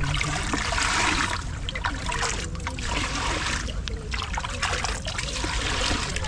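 Hot-spring water running and trickling, splashing in uneven surges.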